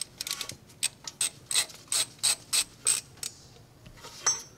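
Hand ratchet clicking in quick repeated strokes, about three or four a second, as it backs out the Torx bolts that hold the turbocharger oil return line. The clicking stops about three seconds in, and a short faint squeak follows near the end.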